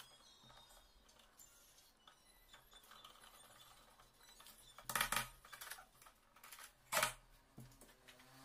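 Faint clicking and scraping of a hand screwdriver driving screws into a mortise lock's faceplate on the door edge, with two louder knocks about five and seven seconds in.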